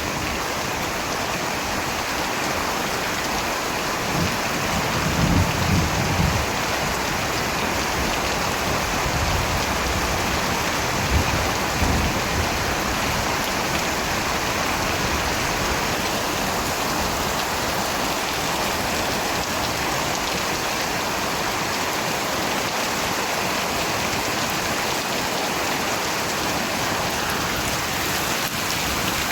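Steady rain falling in an even, dense hiss, with two brief low rumbles, about five and twelve seconds in.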